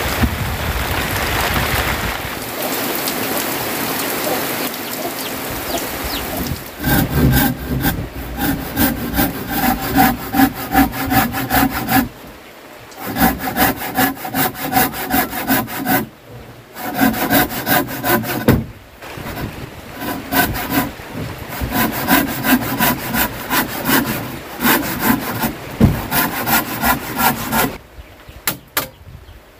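Heavy rain falling steadily for the first six seconds or so. Then a hand saw cutting through a wooden board in quick, even back-and-forth strokes, stopping briefly a few times.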